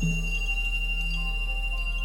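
Synthesized sound-therapy track of layered steady tones: a deep low hum, a mid tone that swells in at the start and fades away, and a steady high tone, with soft chime-like notes ringing over them.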